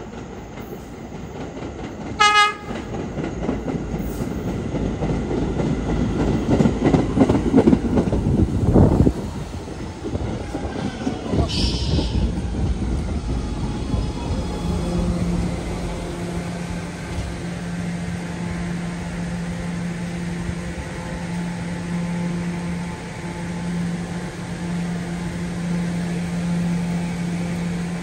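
R211S subway train sounding a short horn blast about two seconds in, then rumbling into the station and slowing to a stop. A brief hiss follows near the middle, and the standing train then hums steadily.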